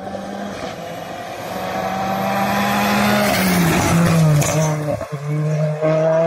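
Rally car at full throttle approaching and passing close on a loose gravel road. The engine note is held high and grows louder, with gravel and dust rushing from the tyres as it goes by about three to four seconds in. The note steps down about three seconds in, lifts briefly near the end and climbs again, then cuts off suddenly.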